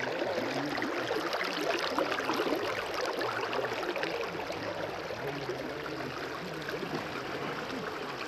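Water of a stream flowing and babbling steadily.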